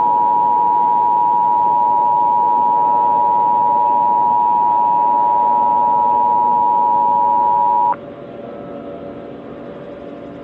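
Emergency Alert System attention signal: a loud, steady two-pitch tone held for about eight seconds that cuts off suddenly, leaving a low hiss with a faint hum.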